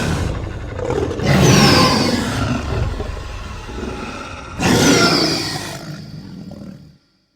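Dinosaur roar sound effect: a growling roar that swells twice, about a second in and again near five seconds, then tails off and stops abruptly near the end.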